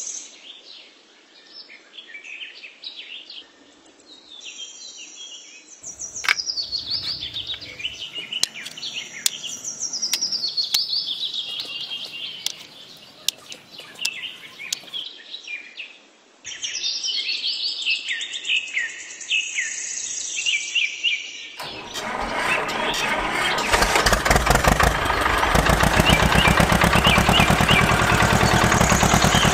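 Birds chirping and singing, with short, often falling calls. About 22 seconds in, a small engine starts up and keeps running with a fast, even chug, much louder than the birds.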